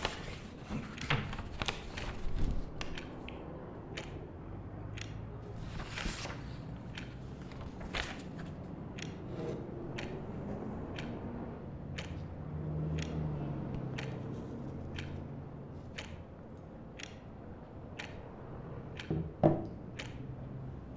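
Quiet room ambience: a clock ticking about once a second over a low rumble of traffic outside that swells and fades midway. A few footsteps and knocks come in the first couple of seconds, and a single sharp knock sounds near the end.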